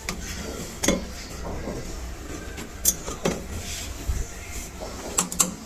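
Scattered sharp knocks and metallic clinks as the drive belt is worked onto the drum pulley at the back of a front-load washing machine, with a cluster of clicks near the end.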